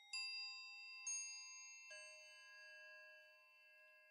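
Soft bell-like chime notes, three struck about a second apart, each left ringing and overlapping the next: a chiming music cue.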